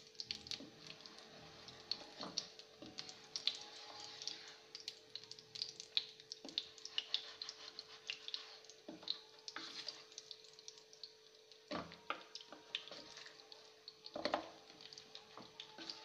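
Jaggery melting in hot ghee in a non-stick kadhai: a faint crackling sizzle, with taps and scrapes of a wooden spatula pressing and stirring the lumps and a few louder knocks of the spatula against the pan. A faint steady hum runs underneath.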